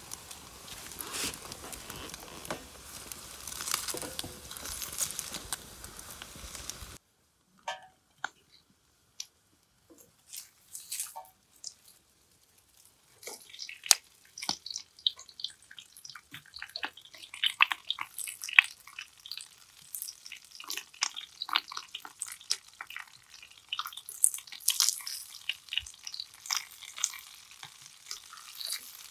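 Food frying in a pan on a small wood-burning hobo stove, crackling and spitting in scattered pops that grow thick and busy about halfway through. A steady background noise in the first seven seconds stops abruptly.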